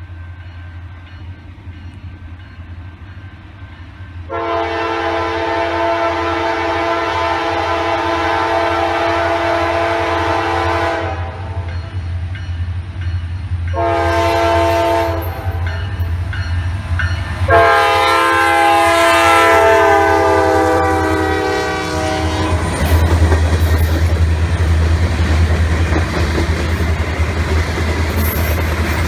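Freight train's lead diesel locomotive, a Norfolk Southern GE C44-9W, sounding its air horn in three blasts as it approaches: long, short, then long, the last blast falling in pitch as the locomotive passes. Then the locomotives rumble by and covered hopper cars clatter over the rail joints.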